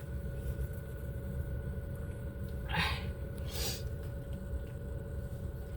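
Steady low rumble inside a car cabin, with two brief soft noises about halfway through.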